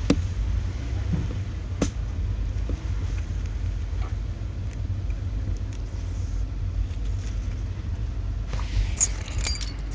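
Chevrolet Malibu running with a steady low rumble, and sharp clicks near the start and about two seconds in.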